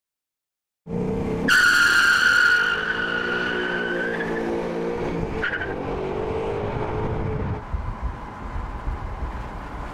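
Ford Mustang Boss 302's 5.0-litre V8 revving up hard as the rear tyres break loose in a long, loud, high-pitched squeal, followed by a second brief squeal a few seconds later. Near the end the engine note gives way to an even rush of road and wind noise.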